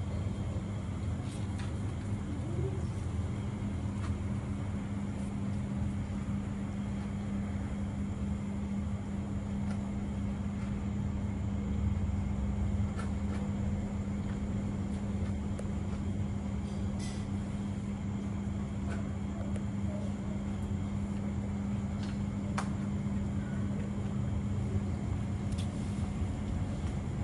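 A steady low machine hum with a deeper rumble beneath it, and a few faint clicks scattered through.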